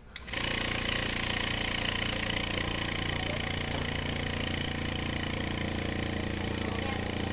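Electric vacuum pump switching on with a click and then running steadily, a hum with a hiss over it, as it draws the air out of a bell jar.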